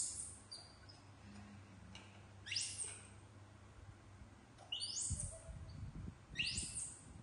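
Baby macaques giving four short, high-pitched squeals about two seconds apart, each sliding down in pitch, as they wait to be given food. Low rustling and handling noises from about five seconds in.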